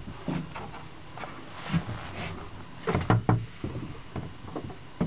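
Knocks and clicks of a wooden cabin door and its latch being handled and swung open, with a cluster of louder knocks about three seconds in.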